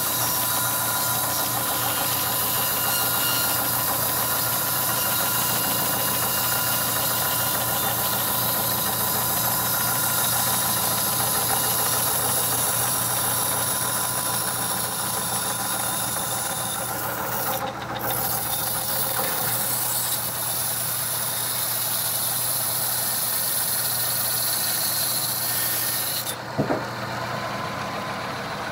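Band sawmill blade cutting lengthwise through a mahogany log: a steady mechanical drone under a continuous high hiss from the blade in the wood. Near the end the hiss stops as the cut finishes, followed by a single sharp knock.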